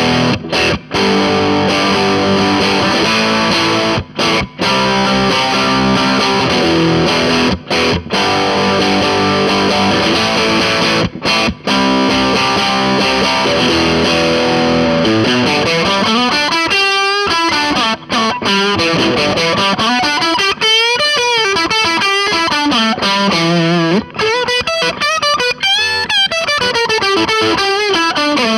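Electric guitar played through an Orange Crush Pro 60 amp's overdrive channel with the gain at about two o'clock, giving a moderate crunch from a vintage Fender with low-output pickups. Chords and riffs with short breaks come first. From about halfway, lead lines take over, their notes sliding and bending widely up and down.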